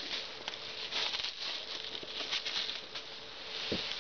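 Clear plastic shrink wrap crinkling and crackling as it is handled and pulled at by hand, a continuous dense crackle.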